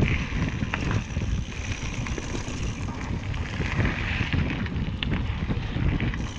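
A mountain bike being ridden along a rough forest singletrack: a steady rumble of tyres on dirt and stones with wind buffeting the action camera's microphone, and scattered clicks and knocks from the bike rattling over bumps.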